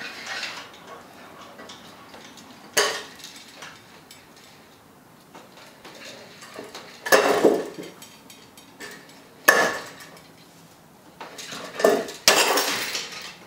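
Steel chain and stacked weight plates clinking and clanking as a rope hoist is hauled to lift them, loading a glued wood block hung from a crane scale. Separate sharp clanks about three, seven and nine and a half seconds in, then a longer run of clatter near the end.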